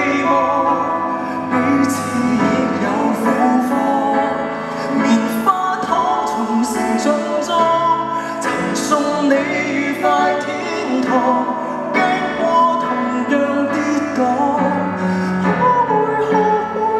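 A man singing a slow Cantonese pop ballad into a microphone, accompanied by a Steinway grand piano, performed live.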